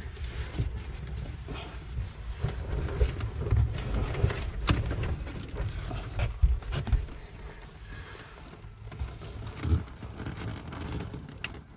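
Corrugated plastic exhaust hose being worked by hand onto the outlet of an inline bilge blower: irregular rubbing and light knocks, with one sharper click about five seconds in.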